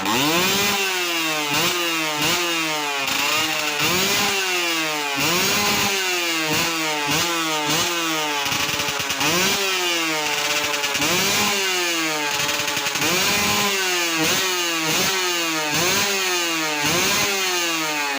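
Yamaha TZM 150's single-cylinder two-stroke engine being revved in quick throttle blips, the pitch rising and falling again about once a second, with a raspy buzz typical of a two-stroke.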